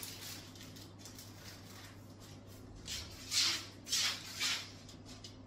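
A person moving about, making four short soft rustles in the second half, over a faint low steady hum.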